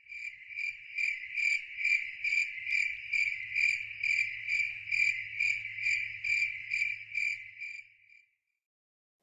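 Cricket chirping in an even rhythm, about two and a half chirps a second, over a faint low hum. It fades in and then fades out, ending about eight seconds in.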